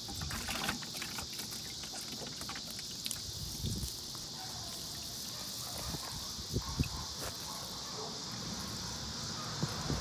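Steady high-pitched insect chorus, with a few soft knocks and rustles scattered through.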